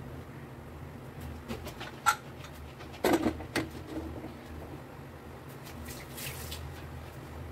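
Aluminium pressure cooker lid being fitted onto the pot and closed: a sharp metal click about two seconds in, then a short clatter of metal knocks as the lid seats and the handles are brought together.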